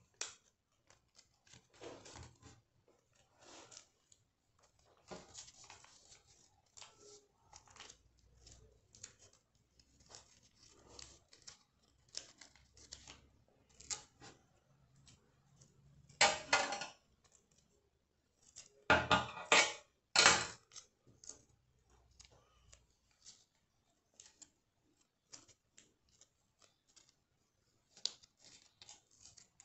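Paper being handled and folded by hand: soft, scattered rustling and crinkling, with three louder, short paper sounds a little past halfway.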